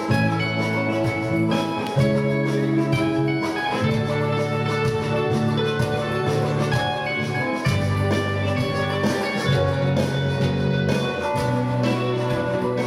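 Live band playing a song: sustained guitar-led chords that change every couple of seconds.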